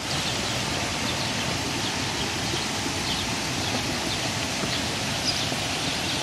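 Steady rush of moving pond water, with faint high chirps of small birds scattered through it.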